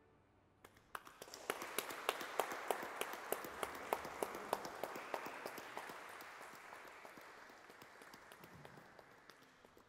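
A small audience applauding: clapping starts about a second in, with single sharp claps standing out, and gradually fades out toward the end.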